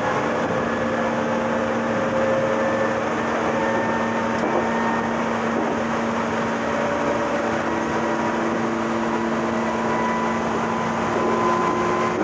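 Running sound of a Meitetsu 6000 series resistance-control electric train: a steady rumble of the moving train, with thin whines that slowly rise in pitch.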